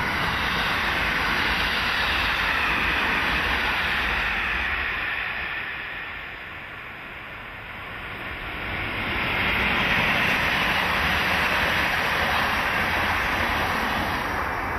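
Multi-car express train passing close by, a steady rush of wheels on rails that eases off a little partway through and swells again to its loudest about ten seconds in.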